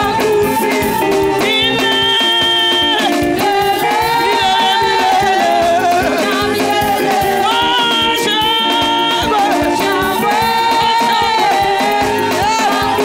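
Gospel music from a church choir: voices singing over held instrumental chords with a steady, rattling percussion beat.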